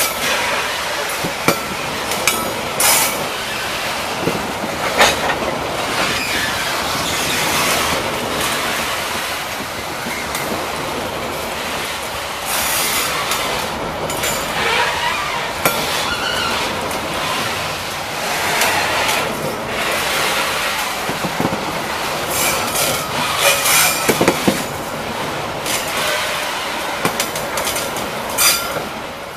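Freight train of boxcars rolling past at close range: steady rumble of steel wheels on the rails, with irregular clacks and knocks as the wheels pass rail joints and the cars jostle.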